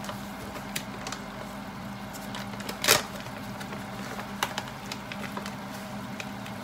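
Wild greens and bacon frying in a pan, a faint crackle of scattered light clicks over a steady hum, with one short sharp noise about three seconds in.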